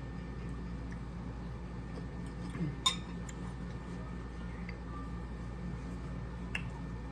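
Quiet mealtime sounds over a steady low hum: a sharp clink about three seconds in as a metal fork is set down on a ceramic plate, and a few fainter ticks of utensils and eating.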